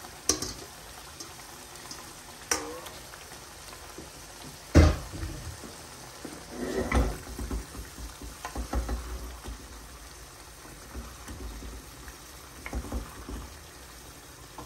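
Wooden spoon stirring fish and potatoes in a stainless steel pot of curry. A few sharp knocks against the pot come first, the loudest about five seconds in, followed by a run of scraping and shuffling stirring sounds.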